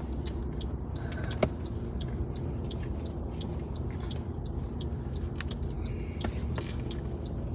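Steady low road and engine noise inside a moving car, with scattered light clicks and one sharper click about a second and a half in.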